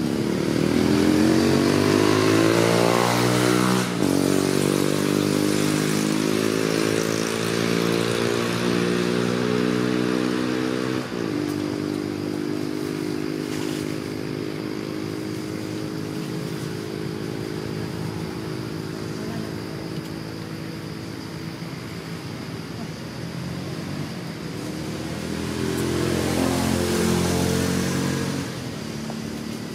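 A motor vehicle engine running. Its pitch climbs over the first few seconds, then holds steady and slowly fades. Near the end it rises and grows louder again briefly, then drops away.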